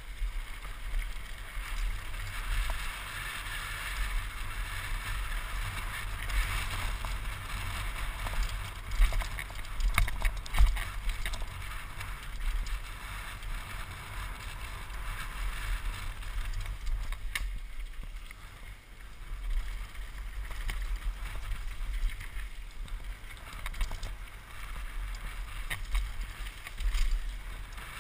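Wind rushing over a GoPro microphone on a mountain bike riding downhill on gravel and dirt, a steady low rumble with tyre hiss. Scattered clicks and knocks come from the bike over bumps, the loudest about ten seconds in.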